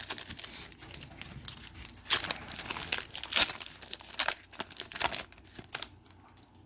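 Foil wrapper of a Pokémon booster pack being crinkled and torn open: irregular crackling with several sharper rips, tailing off near the end.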